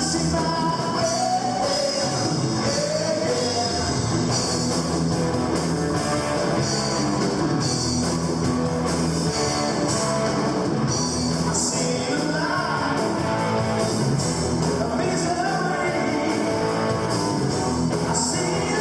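A live rock band playing at a steady loud level: electric guitars, bass and a drum kit with cymbals keeping a steady beat.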